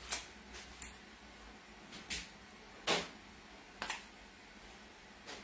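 Kitchen handling noises: about six short, separate scrapes and taps spread over five seconds.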